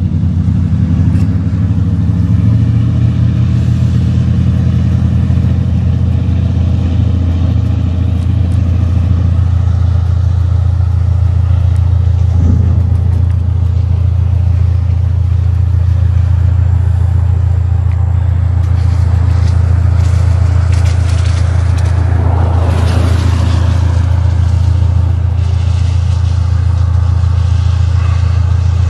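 Steady low rumble of a vehicle's engine running, with a brief swell of rushing noise about two-thirds of the way through.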